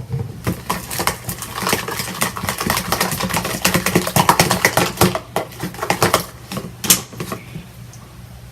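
Sticky homemade face-mask slime being squeezed and worked by hand, making rapid wet clicks and crackles that stop about seven seconds in.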